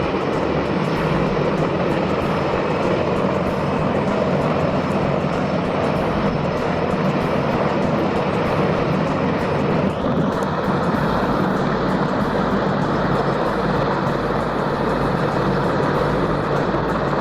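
Mi-26 heavy transport helicopter's twin turbine engines and big main rotor running steadily. About ten seconds in the sound shifts, with a steady higher whine joining and a deeper rumble.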